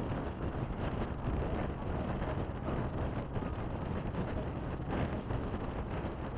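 Steady engine, tyre and wind noise from inside a bus moving at highway speed.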